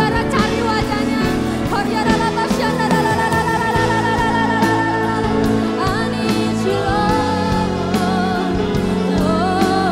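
Women singing a slow worship song into microphones, their voices wavering with vibrato over sustained instrumental chords.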